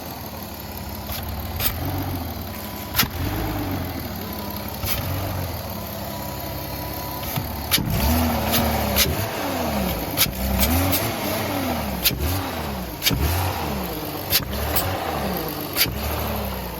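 Porsche Cayenne 3.2-litre V6 engine running, at first steady, then revved up and down repeatedly from about eight seconds in. Sharp clicks come at irregular intervals throughout and are the loudest sounds. The owner takes the engine's sound for abnormal.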